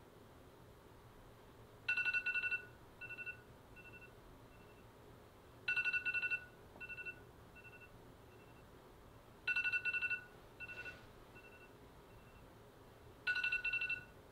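Electronic telephone ringing: four trilled two-tone rings about four seconds apart, each trailing off in fading echoes.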